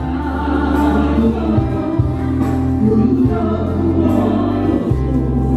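A woman singing lead into a microphone while a group of men sing harmony with her, over a live band with a sustained bass line that changes note every second or so.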